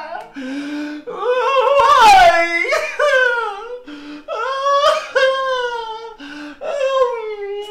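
A man wailing and sobbing loudly in long drawn-out cries that rise and fall in pitch, with a wailed "Why?" among them.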